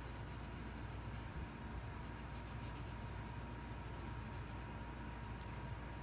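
Soft, quick rubbing strokes of a wipe-covered fingertip across an EVA foam piece, working shading powder in around its edges, over a low steady hum.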